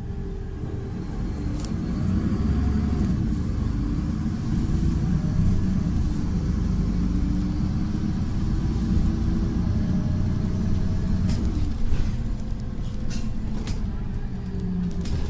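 Tram running along the street, heard from inside: a steady low rumble of wheels on the rails with a motor whine that drifts up and down in pitch, and a few sharp clicks near the end.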